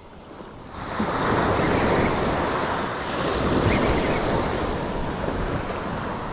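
Small surf waves breaking and washing up the sand, with wind on the microphone; the rush swells up about a second in and stays steady.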